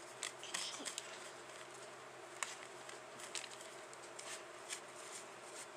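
Candy mix being stirred in a small plastic tray: faint scraping with scattered light clicks against the plastic.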